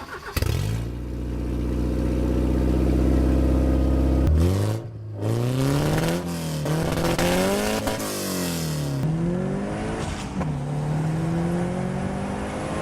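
Porsche 944 Turbo's turbocharged 2.5-litre four-cylinder engine running at a steady speed, then revving up and down several times before climbing once more and settling.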